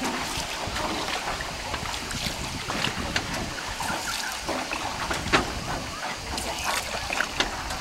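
Small rowboat being rowed along a river: water sloshing and splashing with scattered short knocks from the oars, a sharper one about halfway through, and wind rumbling on the microphone.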